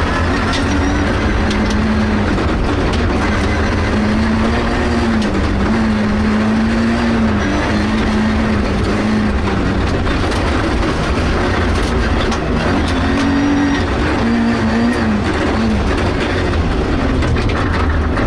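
Inside a rally car at speed on a gravel stage: the engine running hard, its pitch rising and falling as the revs change, over a constant heavy rumble of tyre and road noise, with scattered ticks of stones striking the body.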